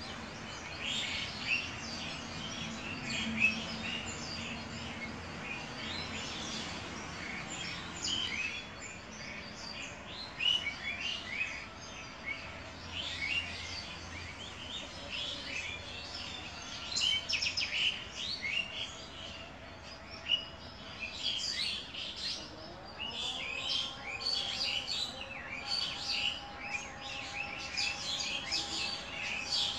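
Small birds chirping in quick, repeated short calls throughout, with a faint steady hum joining about two-thirds of the way through.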